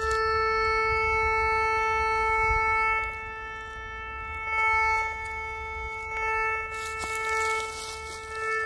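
Metal detector giving a steady buzzing tone of one unchanging pitch as its search coil is swept over the ground. The tone is strongest for the first three seconds, then swells and fades with each pass of the coil, the sign that it is picking up buried metal.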